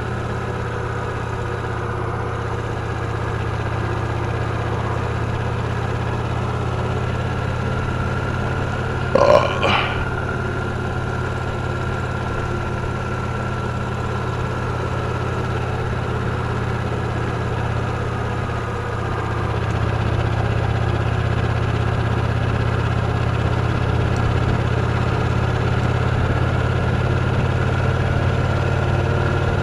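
Victory Cross Roads Classic LE's 1700 cc V-twin engine running steadily under way, getting a little louder from about twenty seconds in. A brief sharp sound cuts in over it about nine seconds in.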